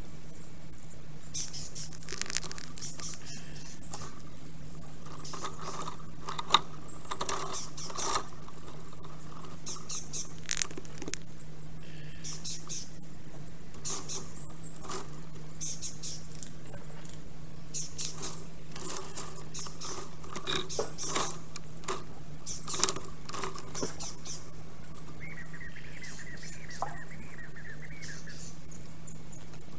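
Scattered clicks and rustles of a black stork working sticks and moss in its nest, over a steady hiss and a low hum. Near the end comes a short wavering bird call.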